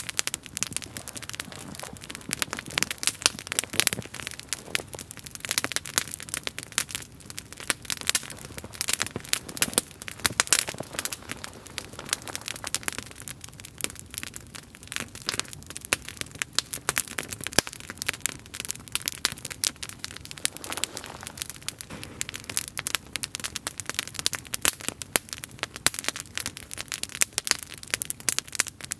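Wood campfire crackling, with many quick irregular snaps and pops.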